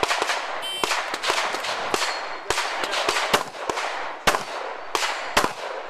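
A string of pistol shots, about a dozen sharp cracks spaced irregularly about half a second apart, with a short echo after each.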